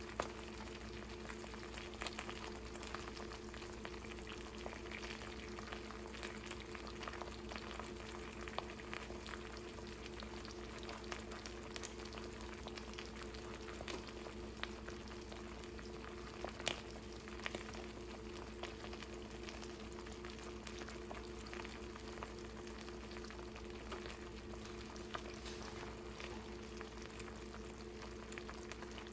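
Eggs and hot-sauce marinade frying in a nonstick pan: a steady sizzle and bubbling with scattered pops and crackles, the sharpest about halfway through, over a steady low hum.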